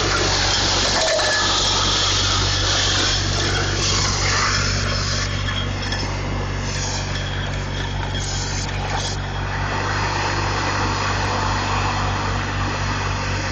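Mud Dog 1000 hydro-excavator vacuuming spoil out of a hole through its suction tube: a steady rush of air, water and gravel going up the tube, over the steady low hum of the machine's engine and vacuum blower.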